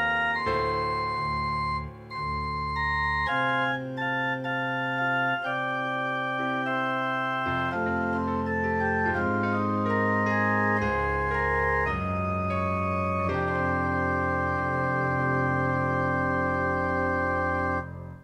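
Organ postlude: slow, sustained chords over long held bass notes, changing every second or two, cutting off abruptly near the end.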